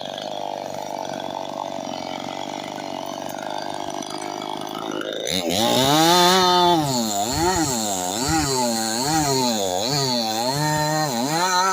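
Two-stroke chainsaw cutting hard wood: a steady drone at first, then about five seconds in the saw goes to full throttle and its pitch repeatedly dips and recovers, about once a second, as the chain bogs under load in the cut.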